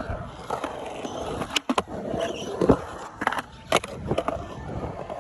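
Skateboard wheels rolling on concrete, with several sharp clacks of boards striking the ground at irregular intervals.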